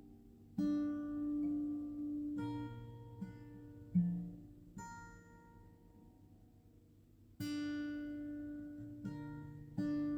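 Slow acoustic guitar music: plucked notes and chords struck every couple of seconds, each ringing on and fading, with a quiet lull in the middle.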